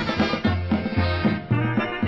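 Polka band recording playing an instrumental passage over a steady, bouncing bass beat.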